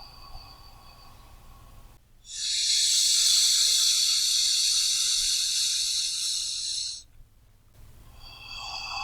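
A person breathing deeply and slowly: the end of one breath fades out at the start, then a long, loud hissing breath out through the mouth lasts about five seconds, and the next breath begins near the end.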